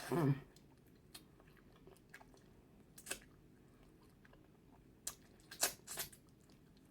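Close-up eating sounds: a person sucking meat off a turkey neck bone, with wet lip smacks and scattered chewing clicks. A brief hummed "mm" comes at the very start.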